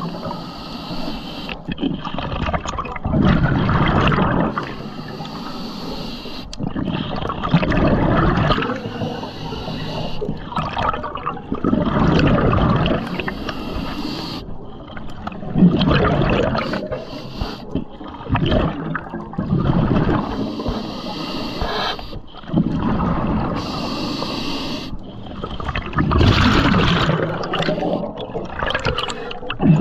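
Scuba diver breathing underwater through a regulator: a short hiss on each inhale, then a gurgling rush of exhaled bubbles, repeating about every four seconds.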